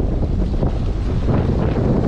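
Strong wind buffeting the microphone, a steady loud rumble, with small waves washing over the shoreline rocks.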